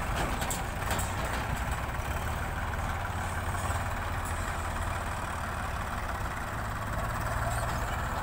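Diesel engines of a farm tractor and a backhoe loader running steadily as the tractor pulls a trailer out of a dirt pit: a low, even drone.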